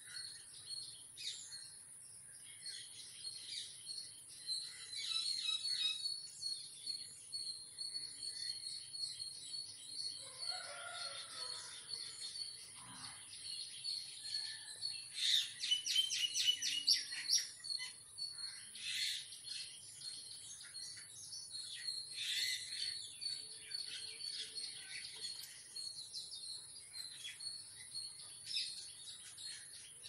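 Jungle babblers giving harsh chattering calls, with a burst of rapid repeated notes about halfway through. A steady, high-pitched cricket trill runs underneath.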